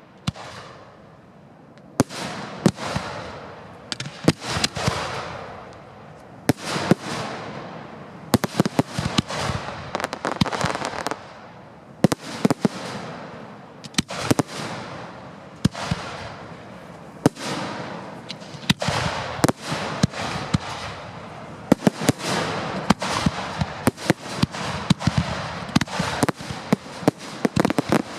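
Fireworks display heard from close beneath at the firing site: after a short lull near the start, a near-continuous run of sharp bangs as shells launch and burst. Crackling trails off after many of the bangs.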